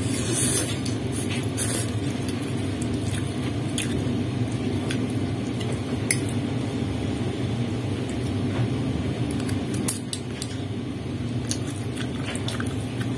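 A fork and soup spoon clicking and scraping against a bowl of meatball noodle soup while eating, with scattered irregular clicks a second or two apart. A steady low background rumble runs underneath.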